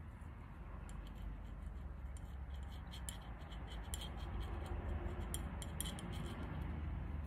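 Light, quick clicks and ticks of a glass dropper tip touching the glazed ceramic mug as ink is dabbed on around it. The clicks begin about a second in and come thickest through the middle, over a low steady hum.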